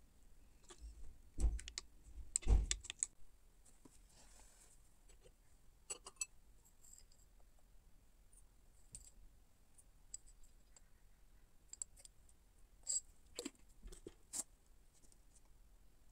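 Scattered light clinks and clicks of a spoon against a porcelain cup and saucer, with two dull thumps in the first few seconds and a few more clusters of clinks later.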